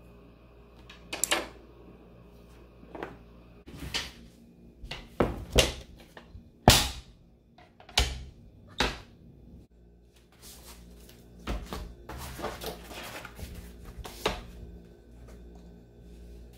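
Wooden tabletop easel being unfolded and set up by hand: a series of sharp wooden clacks and knocks with pauses between them, the loudest a little past halfway, then a stretch of quicker scraping and rustling.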